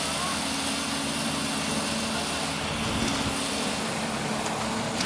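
Heavy construction machinery engines running steadily during a concrete slab pour, with a constant low hum under a wash of noise.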